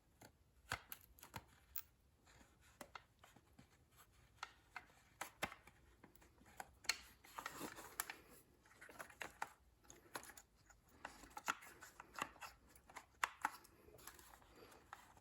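Plastic gear-shifter trim pieces being handled and pressed into place: scattered faint clicks and taps with soft rustling.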